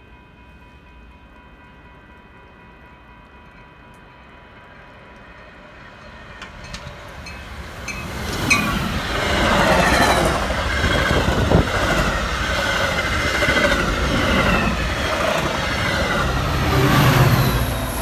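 Metra Union Pacific express commuter train passing at speed. Faint steady tones at first, then the train grows louder from about six seconds in and becomes a loud rush of wheels on rail with rail-joint clicks from about eight and a half seconds. A deeper rumble swells near the end.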